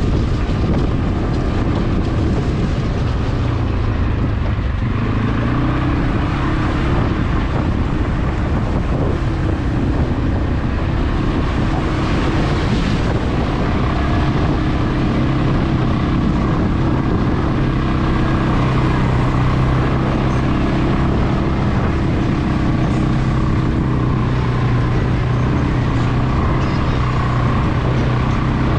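CFmoto CForce 520 ATV's single-cylinder engine running under way at a steady pace. The engine note drops and climbs again about five seconds in.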